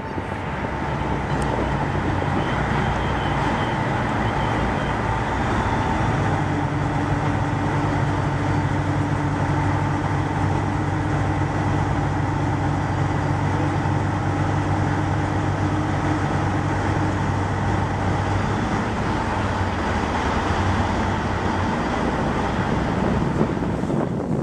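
Steady drone of a large ship's machinery under way, with several low held tones over a wash of noise; the low hum grows stronger about six seconds in and eases near the end.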